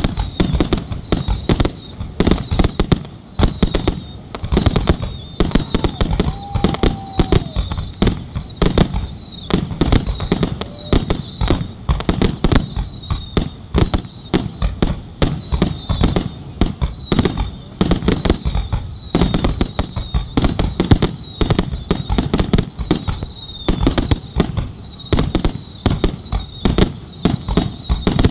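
Fireworks display: aerial shells and firework cakes going off in rapid, unbroken volleys of bangs, many a second, with a high whistling over them that returns again and again.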